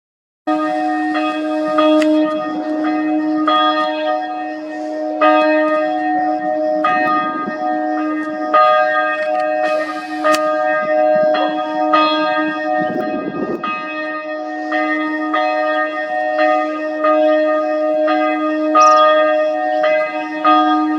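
Church bell ringing. It comes in suddenly about half a second in and is struck again roughly every one and a half to two seconds, its deep hum carrying on between strokes.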